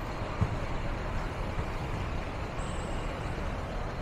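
Steady traffic noise of a busy city street, with a single brief thump about half a second in.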